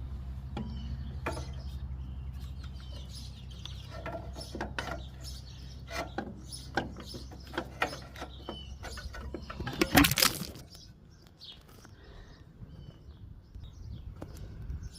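Scattered clinks and taps of hand tools on metal as a tractor alternator is fitted back in place, with a louder rattling burst about ten seconds in. Birds chirp throughout, and a low steady hum fades away partway through.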